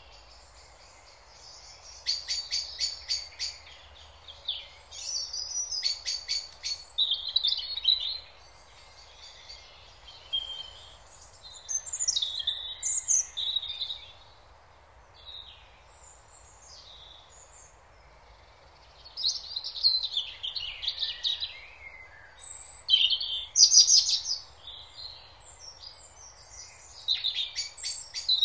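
Songbirds singing: phrases of chirps and quick trills, with short pauses between bursts, over a faint steady background hiss.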